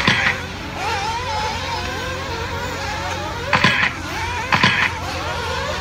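Several nitro RC buggy engines whining around the track, their pitch wavering up and down as the cars accelerate and brake, over a steady low hum. Short sharp noisy bursts come twice, about three and a half and four and a half seconds in.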